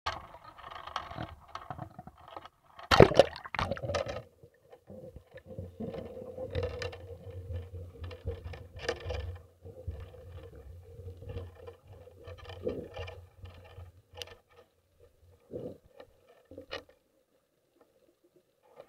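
Underwater camera plunging into the sea and sinking: a loud splash about three seconds in, then muffled underwater bubbling and scattered knocks over a low rumble and a faint steady tone, dying away near the end.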